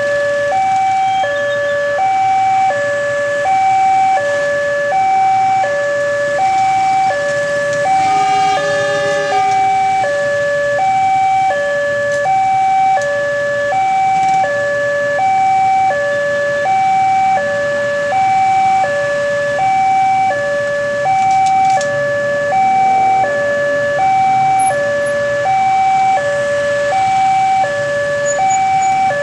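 Railway level-crossing warning alarm: an electronic two-tone bell alternating steadily between a higher and a lower note. It signals that the barrier is down and a train is approaching.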